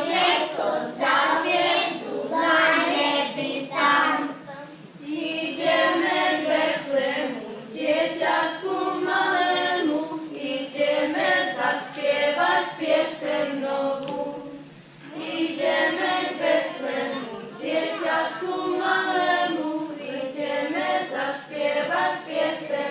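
A group of children singing a Christmas carol together, unaccompanied, in phrases with two short breaks.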